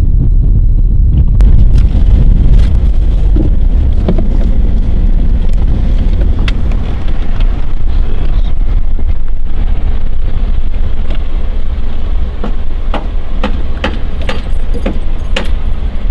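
Truck driving over a rough road: a steady low rumble with frequent short rattles and knocks.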